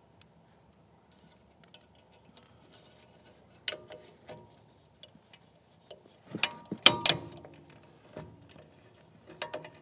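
Handling noise from wiring a combustion blower motor: scattered sharp clicks and light knocks as wire leads, connectors and flexible metal conduit are worked against the motor and furnace door. The loudest is a quick cluster of clicks between six and seven seconds in.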